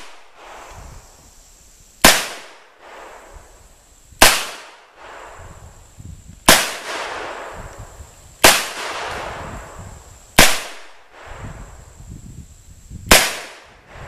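.357 revolver firing near-maximum .38 Special handloads with 125-grain Rainier flat-nose bullets: six shots about two seconds apart, each followed by a rolling echo.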